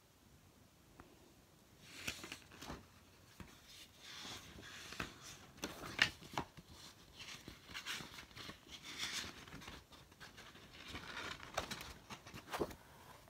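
Paper rustling and crinkling as sketchbook pages of drawings are handled and turned, with small clicks and knocks mixed in; it starts about two seconds in and stops shortly before the end.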